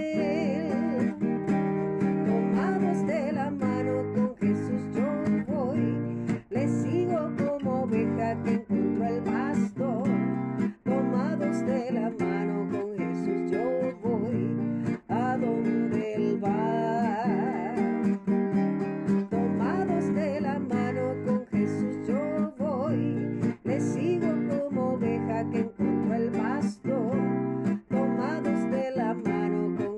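Music led by a strummed acoustic guitar, with a steady rhythm of strokes throughout.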